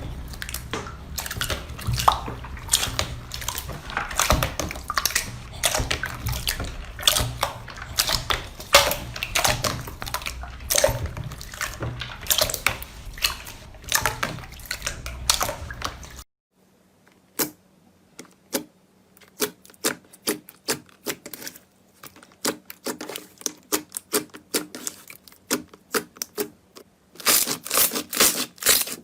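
Slime being squeezed and played with by hand, making rapid sticky clicks and pops. After a sudden cut about sixteen seconds in, the clicks come sparser over a faint steady hum, turning dense again near the end.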